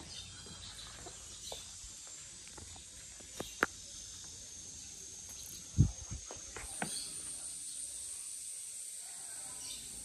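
Quiet outdoor background with a steady high hiss that grows a little brighter about two-thirds of the way through. It is broken by a couple of sharp clicks about three and a half seconds in, a dull thump near six seconds (the loudest sound), and a few light ticks just after.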